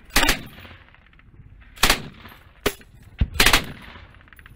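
Gunfire: several loud shots at uneven intervals, about a second apart, with a short burst of shots near the end. This is the supporting fire that opens an infantry assault.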